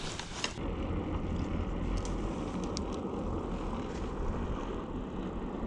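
Steady low rumble of wind buffeting an action camera's microphone, with a few faint clicks around the middle.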